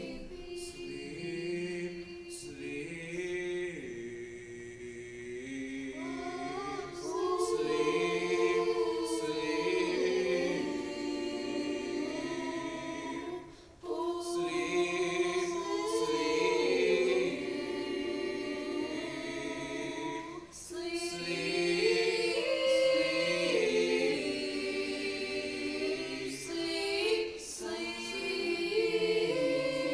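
A high school choir singing a holiday piece a cappella in sustained chords, with short breaks between phrases about 14 and 21 seconds in.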